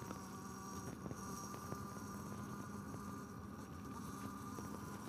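Faint steady hum of the electric motor of a Yamaha RS125 converted to electric drive, ridden slowly, with a steady low tone and a fainter higher whine.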